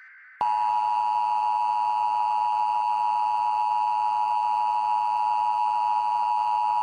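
Emergency broadcast attention signal: a steady two-tone alert hum that starts about half a second in and holds unbroken.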